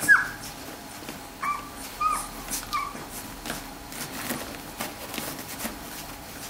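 Two-week-old Labrador puppies nursing, giving four short high squeaks: one falling squeak right at the start and three more in quick succession about a second and a half in, over small wet clicking from suckling.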